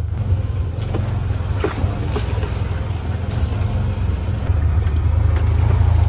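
Side-by-side buggy's engine running steadily, heard from inside the cab as it pushes along an overgrown track, with branches scraping and knocking against the windscreen and frame several times.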